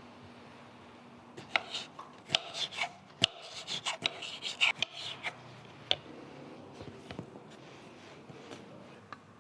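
A quick, irregular run of sharp taps, knocks and scrapes of utensils and dishes being handled at a cafe counter, busiest in the first half, then a few lighter ticks near the end.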